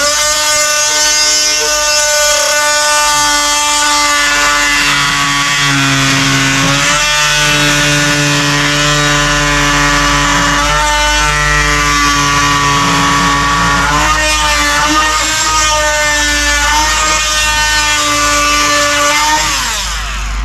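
Corded oscillating saw running continuously as it cuts away wood from a boat's hull planking to shape a scarf. It gives a steady whine whose pitch dips briefly a few times, and it cuts off near the end.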